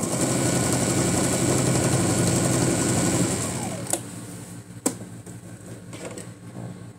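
Electric domestic sewing machine stitching a seam through fabric, running steadily for about three seconds, then slowing and stopping. Two sharp clicks follow a second apart.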